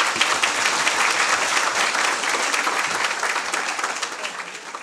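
Audience applauding, a dense patter of many hands clapping that starts to die down near the end.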